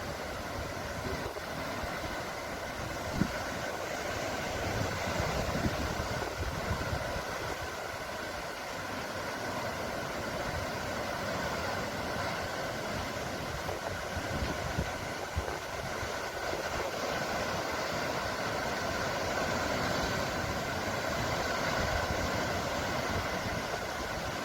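Steady rushing sea noise with a gusty low rumble and a faint steady hum running under it.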